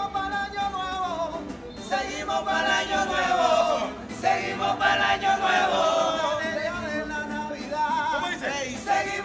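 A group of men singing together, several voices on long, held notes with phrases breaking every few seconds.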